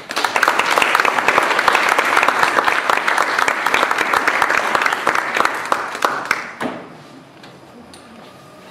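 Audience applauding at the end of a talk, a dense clapping that dies away about six and a half seconds in.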